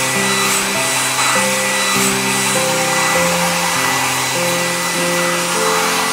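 Hair-dryer sound effect: a steady rushing hiss of blown air, over a simple background music tune.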